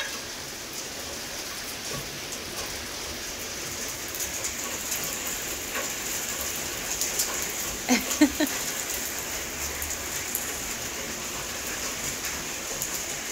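Rain falling steadily, with scattered single drops hitting; a few brief louder knocks about eight seconds in.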